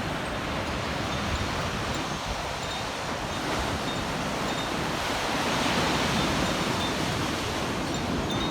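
Ocean surf washing onto a beach, swelling about two-thirds of the way through, with a few faint high notes from Koshi chimes ringing over it.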